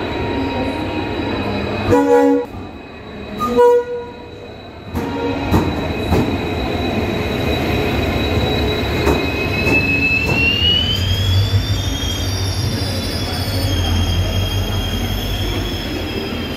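Train running with a steady high-pitched wheel squeal whose pitch rises and eases back partway through. Two short horn blasts sound a couple of seconds in, about a second and a half apart.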